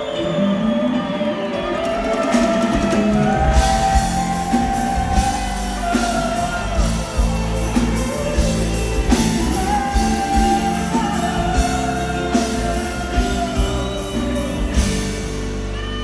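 Live band playing a pop ballad: a melody line over bass and drums, with the drum hits coming in strongly a few seconds in.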